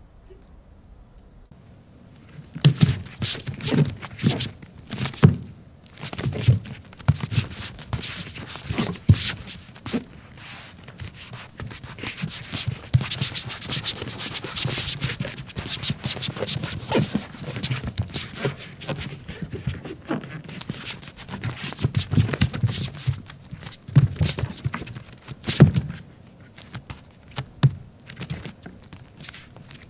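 Bare feet stepping, tapping and scraping on a floor: an irregular run of thuds and sliding scrapes that starts about two and a half seconds in.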